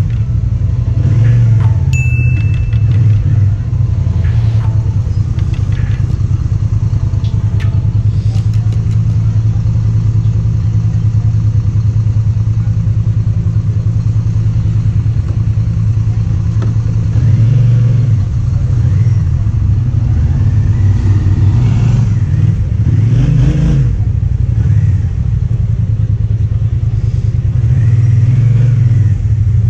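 KYMCO AK550 maxi-scooter's parallel-twin engine running at low revs in slow stop-and-go riding, a steady low drone whose note swells briefly several times as the throttle opens.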